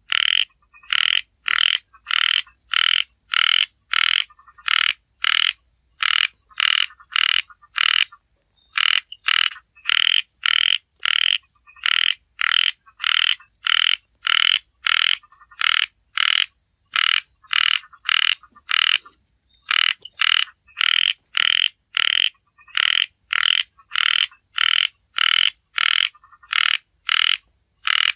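A small frog (Thai khiat) calling: a short croak repeated evenly about twice a second, breaking off briefly twice.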